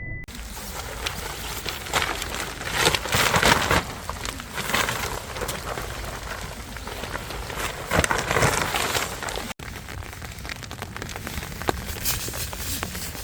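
Steady rain falling and spattering, with louder swells of patter now and then. It breaks off for an instant about nine and a half seconds in, then carries on.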